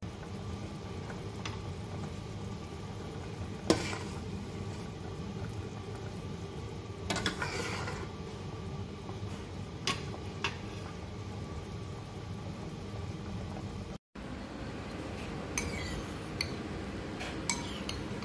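Occasional sharp clinks of metal cutlery against cookware over a steady low hum, the loudest about four seconds in and a short cluster around eight seconds. Near the end a spoon clinks in a soup bowl.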